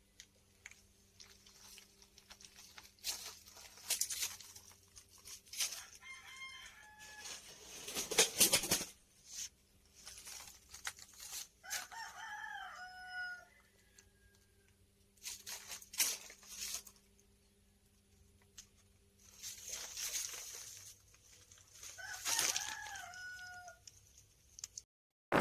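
A rooster crowing three times, each a pitched call that bends and falls. Between the calls come short rustling and knocking noises, over a faint steady hum.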